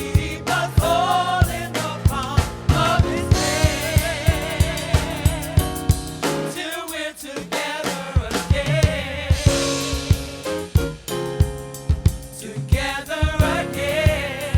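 Gospel music: a sung melody with vibrato over a drum kit keeping a steady beat.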